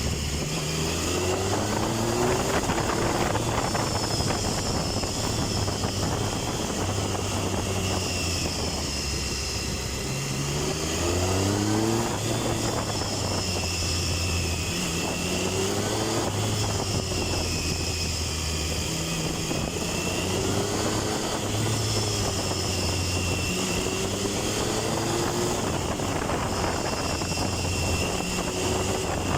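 Triumph Tiger 1050's 1050 cc inline-three engine under way, revving up several times with its pitch rising, then dropping back between pulls, over steady wind and road noise.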